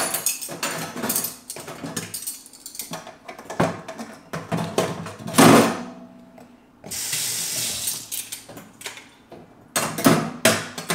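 Kitchen clatter of dishes being cleared and put away: a run of clinks and knocks, the loudest a thud about five and a half seconds in, with a short hiss lasting about a second starting around seven seconds in.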